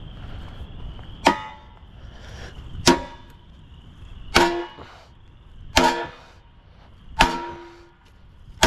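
Hammer blows on a steel part of a tow-behind welder/generator being knocked loose: five sharp strikes about a second and a half apart, each leaving a short metallic ring, with another strike right at the end.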